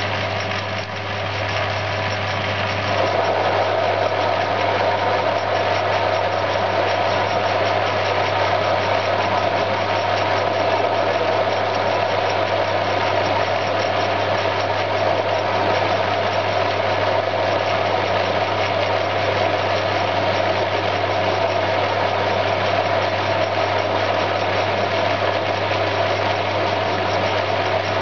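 CQ9325 bench lathe running with its spindle at 300 RPM, a steady machine hum. About three seconds in the negative rake carbide cutter bites into the mild steel shaft and a louder, steady cutting noise joins the hum and holds.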